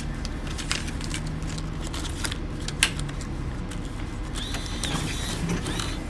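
A dollar bill being fed into a bus fare box: the bill validator's motor whirs and clicks as it draws the bill in, about four and a half seconds in, over the low steady hum of the bus.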